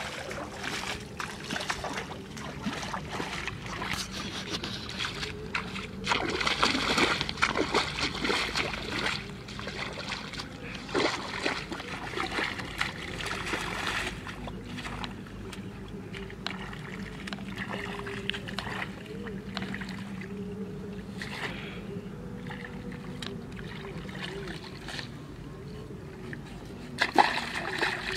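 Water splashing and sloshing in irregular bursts, busiest a quarter of the way in, with a sharp splash near the end, over a faint steady hum.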